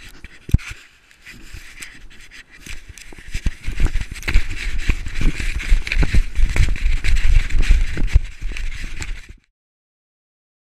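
Close rubbing, bumping and thumping right at the camera's microphone, as goose feathers press against the camera and cover the lens; it grows louder and heavier about four seconds in, then cuts off abruptly near the end.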